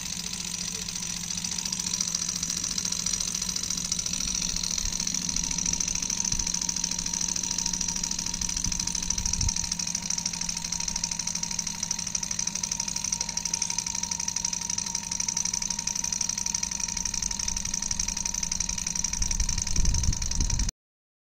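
Small metal model Stirling engine running steadily, its piston and flywheel mechanism making a fast, even mechanical ticking clatter. The sound cuts off suddenly near the end.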